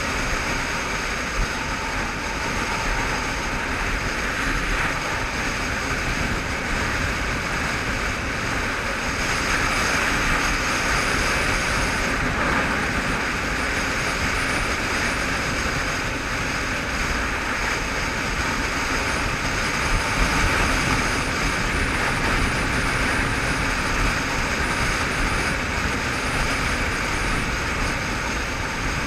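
Motorcycle riding at steady road speed, its engine running as a low drone under a continuous rush of wind over the rider-mounted camera's microphone.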